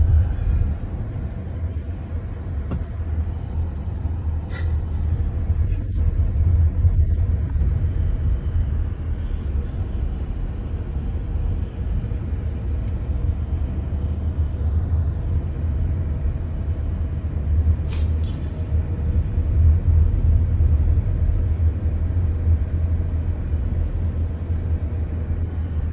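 Car driving along a road, heard from inside the cabin: a steady low rumble of engine and road noise, with a few faint clicks and knocks.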